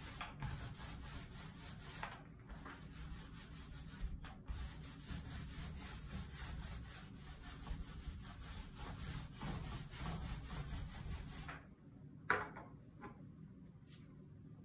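Wet paint being applied to ceramic wall tile in repeated, irregular rubbing strokes of the applicator. Near the end the strokes stop and a steady background hiss cuts out.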